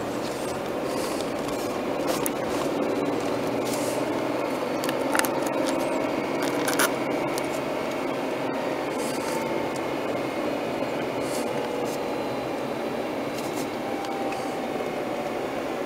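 Car engine and road noise heard from inside the cabin while driving slowly, the engine note drifting gently up and down. Scattered sharp clicks and rubbing sounds over it, the two loudest about five and seven seconds in.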